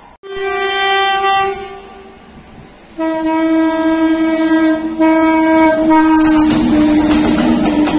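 Indian Railways WAG-9 electric locomotive sounding its horn: one long blast, then after a short gap a second, lower and longer blast. Near the end the freight train's rumble and wheel clatter swell as the locomotive and tank wagons pass close by.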